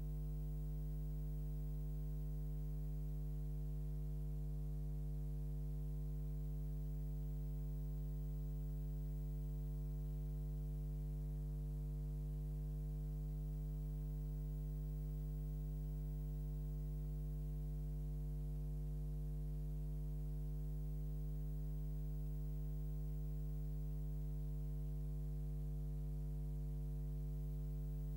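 Steady electrical mains hum, a low buzz that holds unchanged throughout with nothing else over it.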